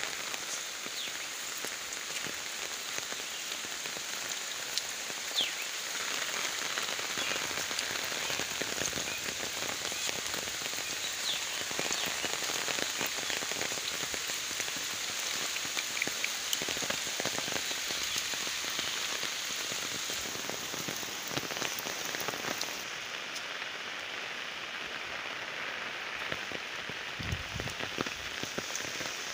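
Heavy rain falling steadily on foliage and a wet dirt path, with many individual drops tapping close by.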